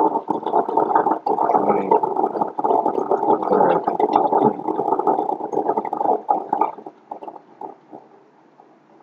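A muffled, garbled voice that stops about seven seconds in, leaving a faint hiss.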